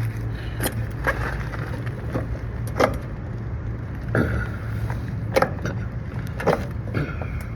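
Irregular metallic clicks, knocks and short scrapes from a valve core removal tool being turned and handled on an air-conditioning service port to unscrew the Schrader valve core, over a steady low hum.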